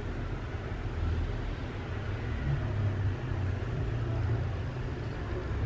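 Steady low rumble with a faint even hiss over it, without any distinct knock, splash or call.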